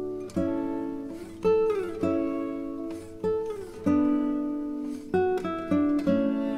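Background music: a plucked string instrument playing chords, a new chord struck about every second and dying away, with a few sliding notes.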